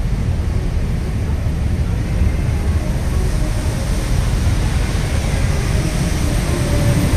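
Steady low rumble of a river tour boat underway, its engine noise mixed with wind on the microphone, with no breaks or changes.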